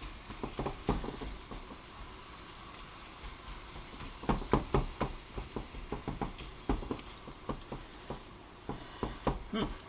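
Spice-coated chicken pieces sizzling faintly in a hot pan, with a utensil clicking and knocking against the pan in bursts of stirring: near the start, around halfway, and again toward the end.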